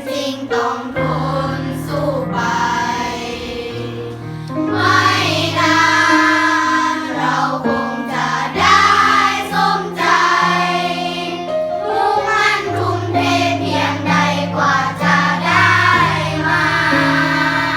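Singers doing a vocal warm-up exercise, holding sustained notes that move in steps over held low accompaniment notes.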